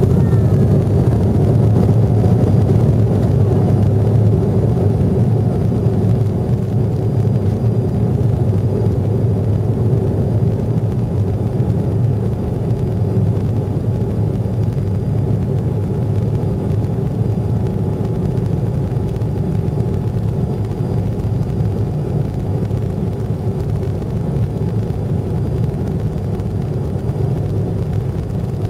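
Jet airliner cabin noise while the aircraft rolls along the runway: a steady rumble of engines and wheels under a faint steady hum, slowly getting quieter.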